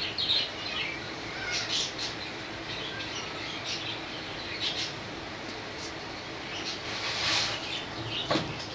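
Scattered short bird chirps and squawks over a faint steady low hum, with a single soft knock near the end.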